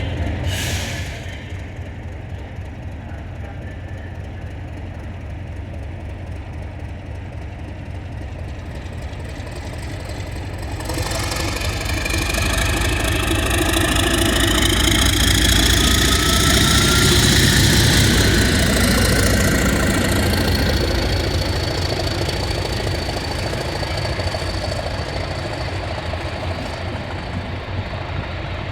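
Class 37 diesel locomotives' English Electric V12 engines running at idle, then opening up about ten seconds in: the engine grows louder with a rising turbocharger whistle that peaks a little after halfway and eases back, a thin high whistle lingering near the end.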